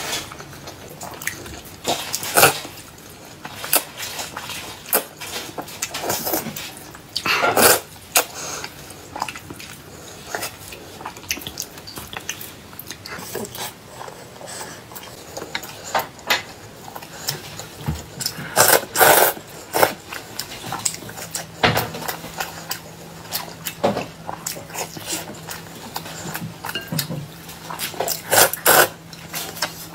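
Close-up eating sounds: a stream of short chewing, biting and mouth noises, with loud slurping of hot and sour noodles near the end. A faint steady low hum starts about two-thirds of the way through.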